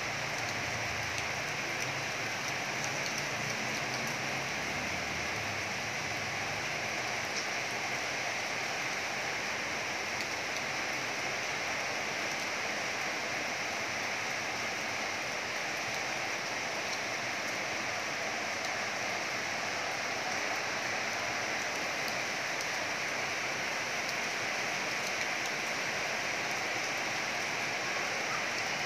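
Heavy rain falling steadily on a paved road and trees, an even, unbroken rush of rain.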